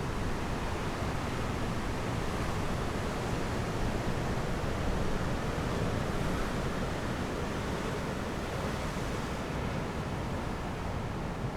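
Sea surf washing in steadily, mixed with wind; an even, unbroken noise with no separate events.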